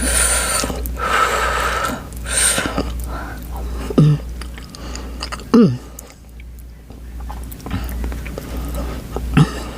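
Close-up eating sounds of someone eating very spicy Buldak carbonara noodles and rice: chewing with small wet clicks, and two long breathy exhales at the start, typical of breathing out the chili heat. A few short, loud, low sounds cut through later, the loudest sliding down in pitch.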